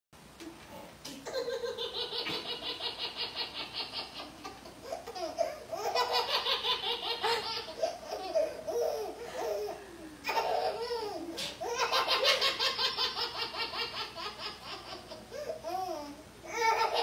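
A baby laughing hard: long bouts of rapid, repeated belly laughs, about four of them, with short breaks between.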